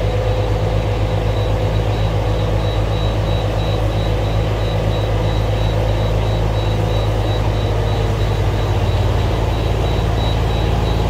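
Rice transplanter's small engine running steadily as the machine drives slowly forward, its low note shifting slightly about eight seconds in, with a thin high whine pulsing on and off.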